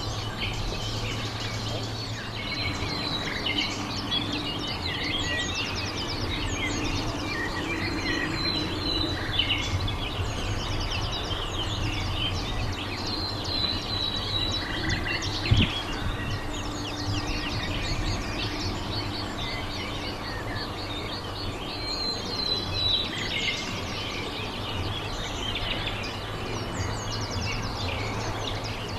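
Small birds chirping and singing, many short calls and trills, over a low steady hum of background noise. One sharp knock sounds about halfway through.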